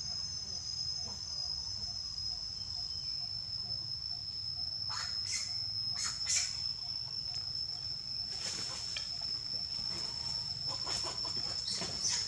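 A steady high-pitched insect drone, with bursts of rustling in dry leaves and undergrowth from about five seconds in as macaques move through it.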